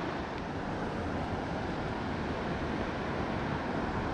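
Steady rushing of fast water below a dam spillway, an even noise with no breaks.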